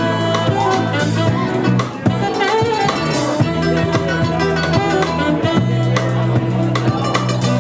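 A live band playing a song at sound check, with a drum kit's regular strokes under sustained low notes.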